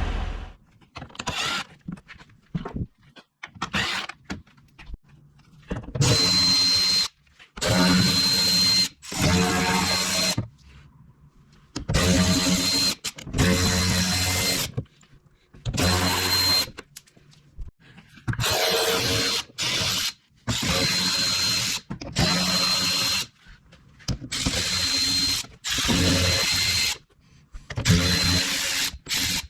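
Cordless drill-driver spinning in about a dozen short runs of a second or so, with pauses between. Each run has a steady high whine.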